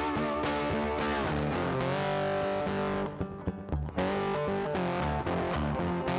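Background music: a rock track led by distorted electric guitar, with a short break about three seconds in.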